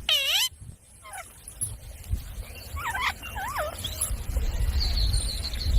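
Rose-ringed (Indian ringneck) parakeet calling: a loud harsh call at the start that sweeps down and back up, then several shorter wavering calls around the middle, with a low rumble underneath in the second half.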